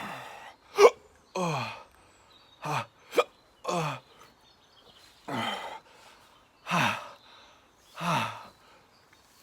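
A man groaning and panting through the burn of a raw Scotch bonnet chilli: a run of short voiced out-breaths, each falling in pitch, about one a second, with two sharp, very brief catches of breath about one and three seconds in.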